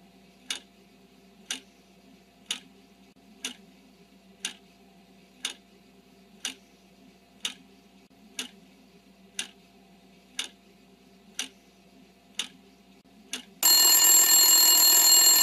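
Clock ticking about once a second as a quiz countdown timer, then a loud alarm bell rings for about two seconds near the end, signalling that time is up.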